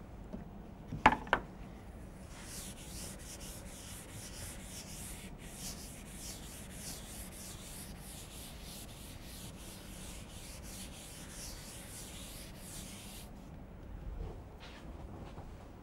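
Felt blackboard duster wiping chalk off a chalkboard: a long run of quick, even back-and-forth rubbing strokes lasting about ten seconds. Two sharp knocks come just before it, about a second in.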